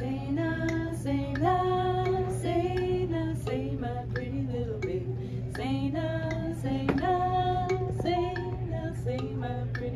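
Three women's voices singing together in harmony, holding long notes.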